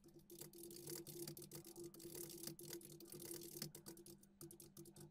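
Faint computer keyboard typing: quick, irregular key clicks over a low steady hum.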